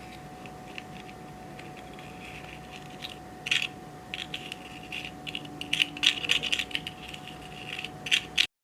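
Clear slime being squished and worked by hand, making wet crackling clicks and small pops as trapped air bursts. It starts sparse and grows busier from about three seconds in, then cuts off abruptly near the end.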